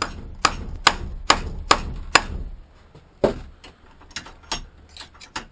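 Hammer striking a perforated steel hanger strap to bend it. Five quick, evenly spaced blows come first, then a single blow about a second later, and lighter knocks near the end.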